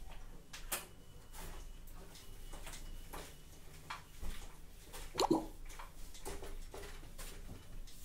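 Whiteboard duster rubbed across a whiteboard in a run of short wiping strokes, with one louder, briefer sound about five seconds in.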